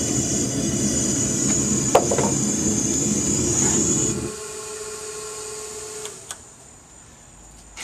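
The forge running with a steady loud rushing and a high hiss while hot mild steel is quenched. A single sharp tap comes about two seconds in, and the rushing cuts off suddenly after about four seconds.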